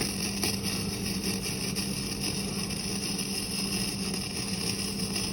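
An electric welding arc crackling and hissing steadily as a bead is run.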